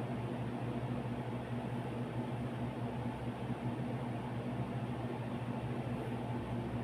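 Steady low hum with an even hiss, the sound of a running machine such as a fan; no sneeze or other sudden sound.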